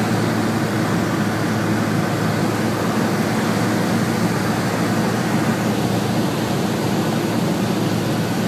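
Cessna 172's piston engine and propeller droning steadily, heard inside the cabin with airflow noise on final approach.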